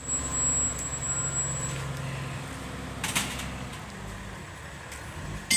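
Wheel loader's diesel engine running as it lifts and tips a bucket of earth, louder for the first two seconds or so and then easing off, with a short clatter about three seconds in.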